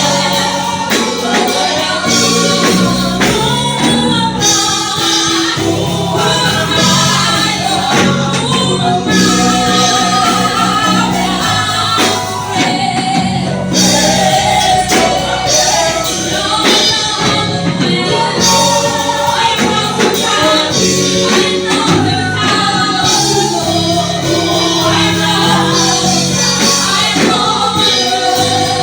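Gospel choir singing a worship song over a band, with a steady bass line underneath.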